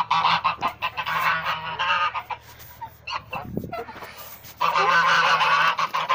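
A flock of domestic geese honking over and over in a loud chorus, dying down for about two seconds midway and then starting up again.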